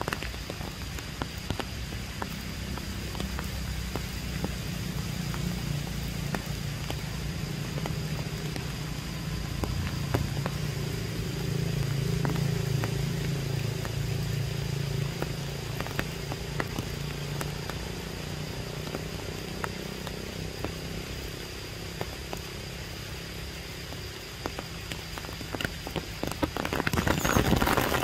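Rain pattering on leaves, with scattered drop ticks over a low steady rumble that swells in the middle. Near the end the rain grows heavier and louder.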